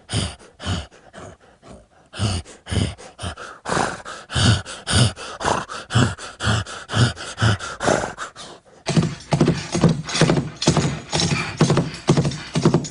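Hoofbeat sound effect: a steady run of clip-clop knocks, roughly two to three a second, with a denser background noise coming in about nine seconds in.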